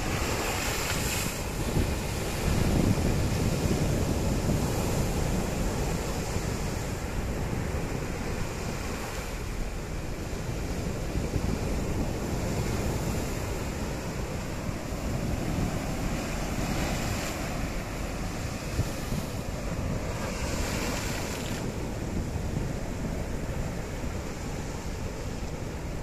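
Sea surf breaking against flat rock ledges and washing across the rock shelf in a continuous rush of noise. The loudest crash comes a few seconds in, after a wave bursts into spray on the rocks.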